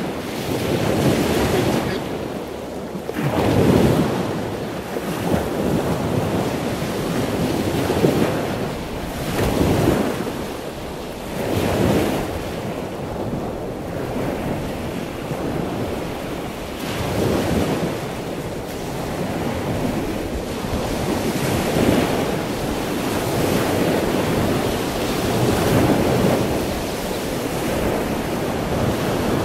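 Wind rushing over the microphone with surf washing on a beach, rising and falling in surges every few seconds.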